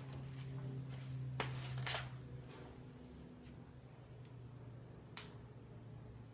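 Faint steady low hum in the room, with a few light clicks and taps: about a second and a half in, again near two seconds, and once more about five seconds in.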